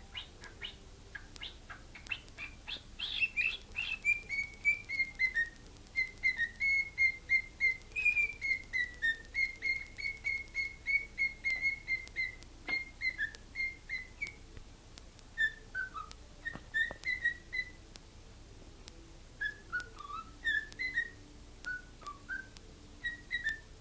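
Pet bird whistling a tune it was taught, a long string of short, clear notes with a few quick chirps at the start. The notes run in melodic phrases, break off about halfway, and then resume with falling steps.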